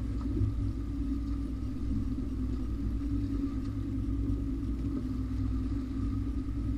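Boat's outboard motor running steadily at trolling speed: a constant low drone with a faint steady high whine over it.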